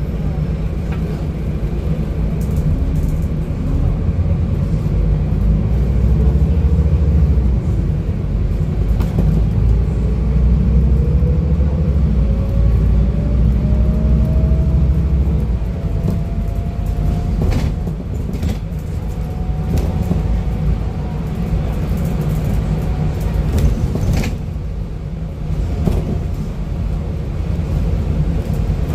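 Scania N250UD double-decker bus under way, heard from the upper deck: heavy engine and road rumble with a whine that rises steadily in pitch through the first half as the bus picks up speed, then holds level while the rumble eases. A few knocks and rattles from the body in the second half.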